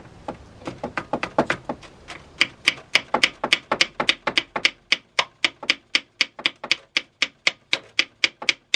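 Hand ratchet clicking as it runs down the two 10 mm bolts of an aluminium coolant flange on a BMW N52 cylinder head. The first couple of seconds hold a few uneven clicks, then it settles into a steady run of about four sharp clicks a second.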